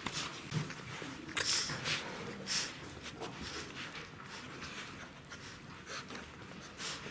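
Czechoslovakian wolfdog puppies suckling at their mother, an irregular run of soft sucking and smacking noises, a little louder around a second and a half and two and a half seconds in.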